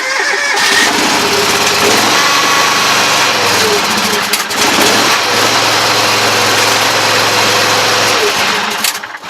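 John Deere tractor engine catching on a cold start and running fast and loud on the choke, its pitch shifting a couple of times. The level falls off about nine seconds in.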